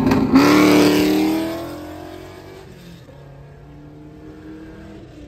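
A car engine accelerating hard, loud at first, then fading over about two seconds into a quieter, steady engine hum.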